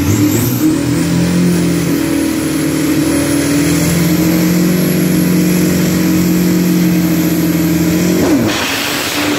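Two drag-racing pickup trucks' engines revved and held at high, steady revs on the start line. About eight seconds in, the pitch drops and the sound breaks into a brief noisy rush as they launch.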